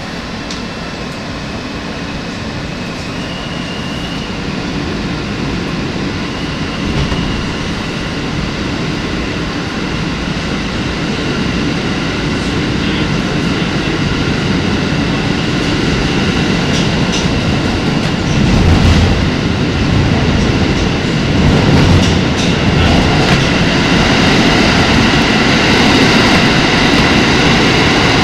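R160 subway train pulling out of a station and accelerating into the tunnel, heard from inside the car: the rumble of wheels on rail grows steadily louder, with a high whine from its AC traction motors.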